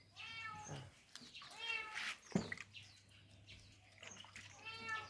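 Domestic cat meowing three times, each meow a drawn-out arching call. There is a short sharp knock between the second and third.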